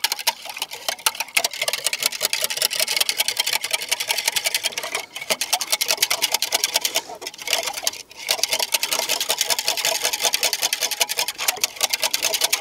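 A metal utensil beaten fast in a glass measuring jug to mix water, yeast and olive oil, making a quick, steady clinking against the glass. There are short breaks a little after five seconds and again around seven to eight seconds.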